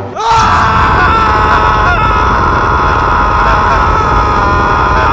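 Large cricket stadium crowd screaming and cheering at full volume. It starts abruptly just after the beginning and holds at a steady high level.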